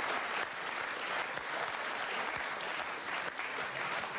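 Talk show studio audience applauding steadily, a dense clapping that carries on without a break.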